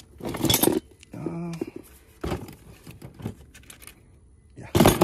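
Tools and odds and ends, including a metal propane cylinder, knocking and clinking inside a plastic toolbox as a hand rummages through it. There are several short clattering bursts, the loudest near the end.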